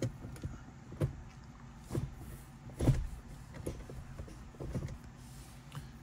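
Handling noise around a wooden shift knob and its leather boot: several soft knocks and clunks about a second apart, the loudest about halfway through.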